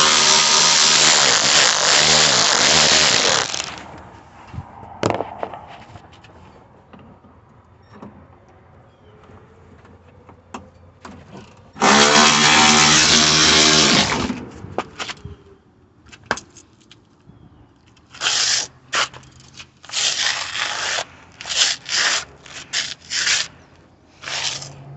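A handheld power tool working the hood latch bolts runs in two stretches of a few seconds each, its motor winding down as each one ends. Near the end comes a quick series of short trigger pulls.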